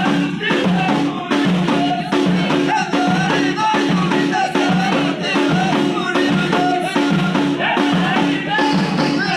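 Ahidous: a line of men beating hand-held frame drums in a steady, repeating rhythm while chanting together.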